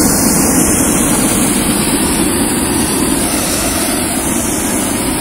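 Hot-air balloon's propane burner firing in one long, loud, steady blast, heating the air in the envelope.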